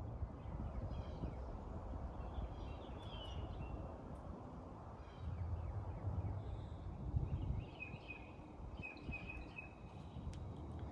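Birds chirping and calling in short phrases over a steady low rumble, which swells for a couple of seconds mid-way.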